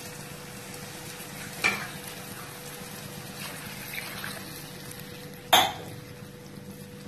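Wooden spatula stirring freshly added water into fried onion, tomato and whole spices in a non-stick kadai, over a soft steady sizzle. The spatula knocks the pan twice, the second knock near the end the loudest.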